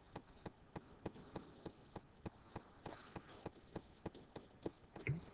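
Faint, evenly spaced ticking, about three ticks a second, with a brief throat or mouth sound near the end.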